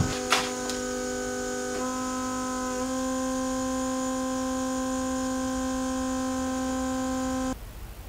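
A steady electrical-sounding hum made of several even tones, which shifts slightly in pitch twice in the first few seconds and cuts off suddenly near the end.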